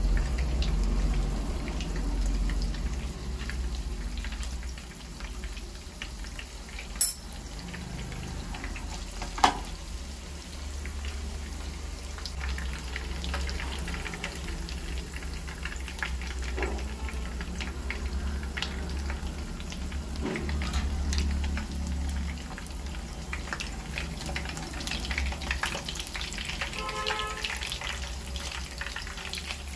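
Oil sizzling and crackling steadily around ramen-noodle-crusted chicken tenders shallow-frying in a nonstick pan. Two sharp clicks come about two and a half seconds apart, and there is a short squeak near the end.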